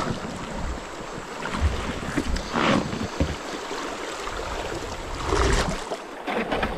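Kayak paddle strokes splashing in river water, a splash about two and a half seconds in and another near five and a half seconds, over moving water, with wind buffeting the microphone.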